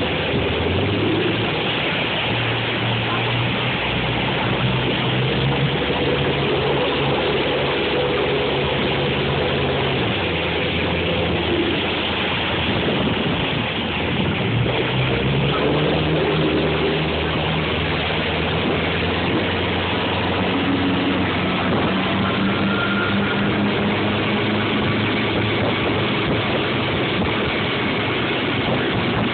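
Towing motorboat's engine running at speed, heard from aboard, over the steady rush of its wake. The engine note drops about ten seconds in and climbs back up a few seconds later as the throttle changes.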